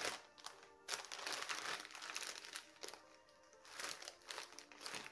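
Packaging crinkling in irregular bursts as a batch of zips is handled, over quiet background music.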